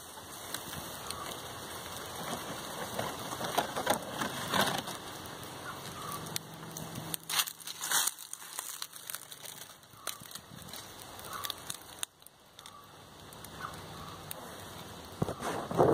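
Dry leaf litter rustling and crunching as someone moves through it and stirs it up, with irregular crackles.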